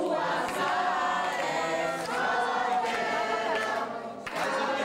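A crowd of party guests singing a birthday song together in phrases, with short breaks about two seconds in and near the end.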